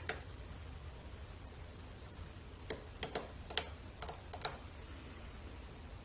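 Metal lock pick clicking in the keyway of a Western Electric 30C lock as it is picked: one sharp click at the start, then a quick run of about six clicks a little past halfway.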